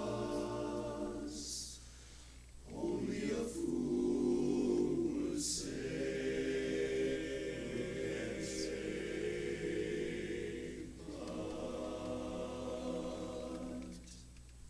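A cappella chorus singing sustained chords, with brief breaks between phrases, stopping shortly before the end.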